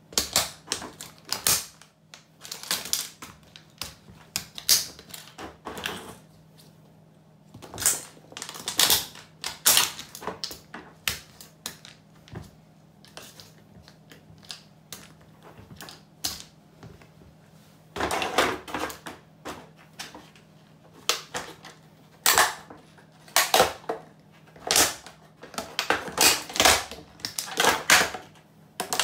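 Hard plastic toy cracking and snapping under Cofra steel-toe work boots stomping on it, broken pieces clattering on a tile floor. The cracks come in bursts, thin out for a few seconds in the middle, then come thick and fast in the last third.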